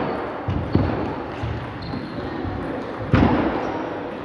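Table tennis ball knocking against the bats and table during a rally, sharp hits echoing through a large hall, the loudest a little past three seconds in.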